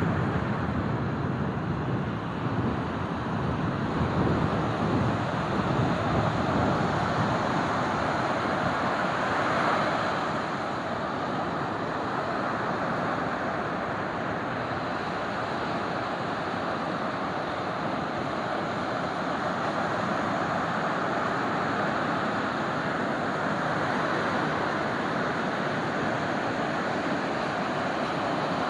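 Ocean surf breaking and washing up a sandy beach: a continuous rush that swells and falls over the first ten seconds or so, then settles to a steadier wash.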